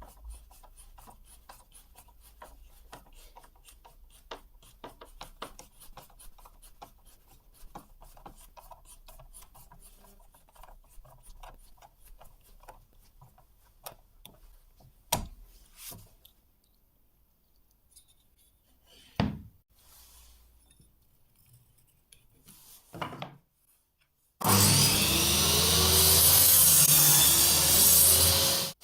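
Faint scraping and light ticking of hand-tool work on a steel knife blank, with a few sharper clicks. About three-quarters of the way through, a loud, steady rasping noise starts suddenly.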